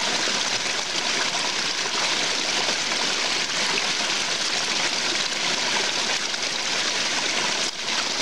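Small woodland stream running steadily, the water splashing down a little cascade over rocks and a fallen branch.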